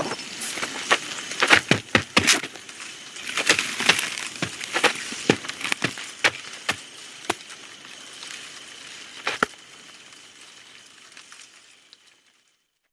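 A rapid, irregular series of sharp cracks and snaps over a hiss, thinning out and then fading to silence near the end.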